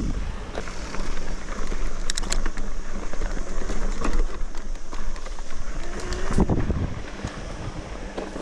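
Mountain bike rolling down a rocky dirt trail: tyres crunching over loose stones, with sharp knocks and rattles from the bike over bumps and wind buffeting the microphone.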